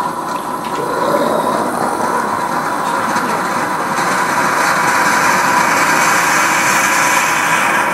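Krups espresso machine hissing steadily as steam escapes around its brew head while it brews into the glass carafe, growing a little louder as it goes.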